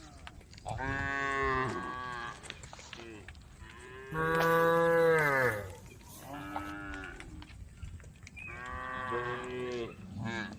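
Several cows mooing in turn, long drawn-out calls at different pitches, some overlapping; the loudest comes about four seconds in and drops in pitch as it ends. The cows are calling to the herd.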